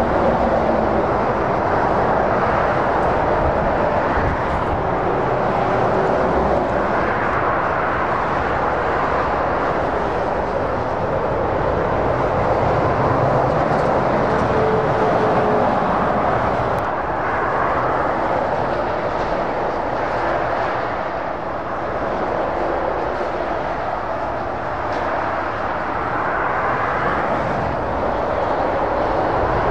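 Motorway traffic: continuous tyre roar and engine noise of lorries and cars passing at speed, swelling and easing slightly as vehicles come and go.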